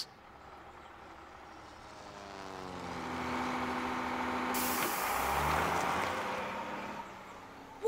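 A large truck going by: its engine swells in loudness, drops in pitch and fades away. A sudden high hiss joins it about halfway through.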